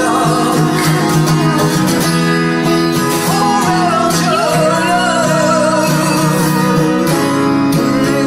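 Live song: sustained singing with vibrato over guitar accompaniment.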